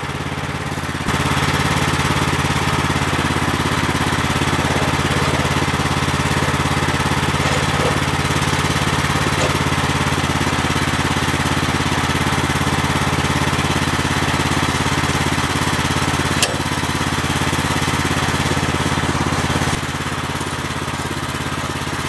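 The gasoline engine of a Woodland Mills HM130MAX portable sawmill running steadily. Its level steps up about a second in and drops back near the end, and there is one sharp click a few seconds before the end.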